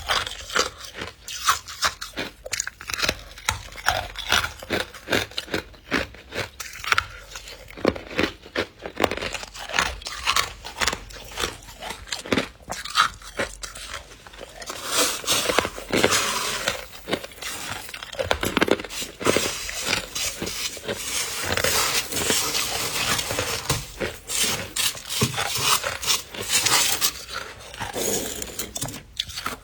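Thick freezer frost being scraped and crunched: a fast run of sharp, crisp crunches, turning about halfway into denser, more continuous scraping.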